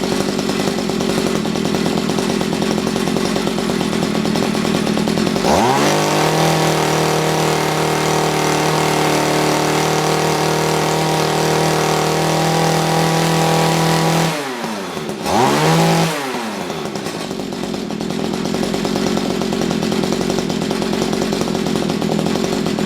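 Mantis tiller's small engine idling, then revving up about five seconds in and holding high speed for around nine seconds before dropping back, giving one brief blip of the throttle, and settling to idle. It is running on a newly fitted carburetor whose mixture is being tuned, and is judged too lean.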